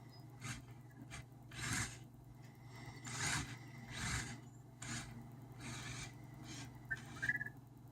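Anki Vector robot's small motors whirring in a series of short bursts as it drives and moves, with a brief electronic chirp near the end.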